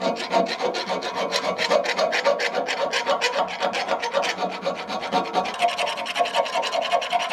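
Steel round file rasping back and forth inside a steel pin hole on a car lift's arm-mounting block, in quick strokes several a second over a steady ringing tone. The hole is being reamed out because its top edge is mushroomed and the arm pin won't fit.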